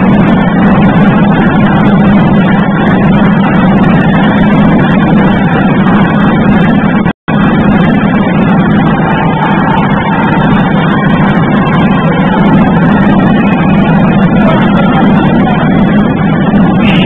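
Loud, steady rumbling din in a basketball hall with no clear voices, cutting out for an instant about seven seconds in.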